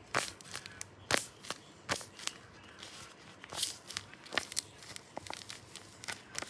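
Handmade paper squishies being squeezed and handled, the paper crinkling and crackling in short, irregular bursts.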